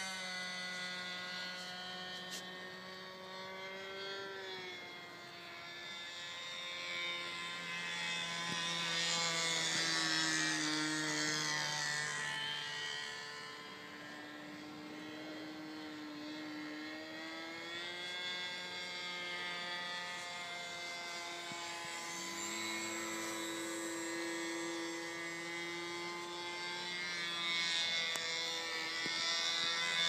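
Engine of a Seagull 40 radio-controlled model airplane running in flight, its pitch dropping and rising several times as the plane passes and changes throttle. It is loudest about ten seconds in and again near the end.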